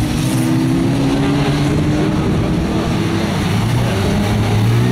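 Engines of several winged stock cars running together on the track, a steady drone whose pitch drifts slowly up and down.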